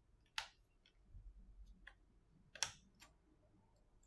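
Small clicks and ticks of phone repair tools and an iPhone 8 being handled: two sharp clicks about two seconds apart, with a few fainter ticks between them.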